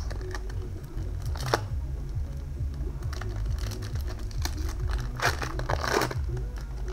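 Pokémon trading cards being flicked and slid against each other, then a foil booster-pack wrapper crinkling as it is worked open, loudest about five to six seconds in.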